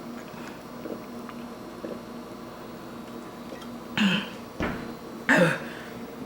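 Two short, loud burps about four and five seconds in, each falling in pitch, with a brief low thump between them, after a few seconds of quiet room hum. They are belches of gas from a liter of Sprite chugged on top of two bananas.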